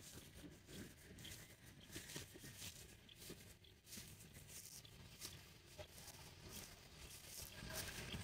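Faint rustling and crackling of footsteps through dry grass, with a low, uneven rumble of wind on the microphone.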